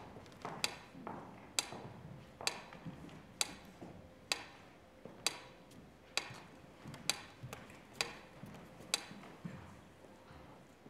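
Mechanical pyramid metronome ticking steadily, a little faster than one tick a second; the regular ticks stop about nine seconds in.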